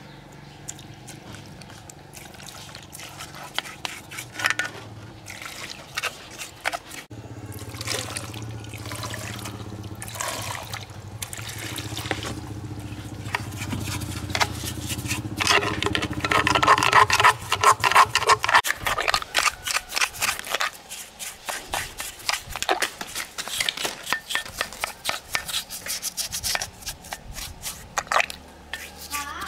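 Paintbrush scrubbing wet metal inside a differential housing and over its pinion gear, with many quick scratchy strokes and liquid dripping. A steady low hum runs underneath, stronger through the middle.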